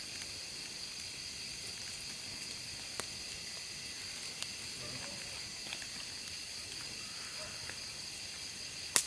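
Night insects chirring steadily in a high-pitched drone, with a wood campfire crackling and giving a few sharp pops, the loudest one near the end.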